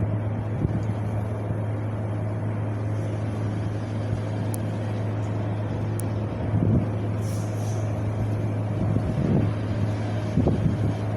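Wind blowing steadily, with irregular low gusts rumbling on the microphone over a constant low hum.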